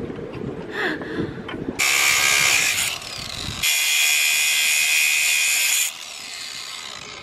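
Angle grinder with a cutoff disc cutting into steel anchor chain: a short run about two seconds in, then a longer run of about two seconds that stops near the end, each a loud steady whine with grinding.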